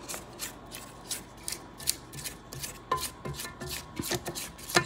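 A silicone spatula scraping cake batter off a stand mixer's flat beater and the sides of a stainless steel bowl: a run of short, irregular scrapes and rubs, a few a second.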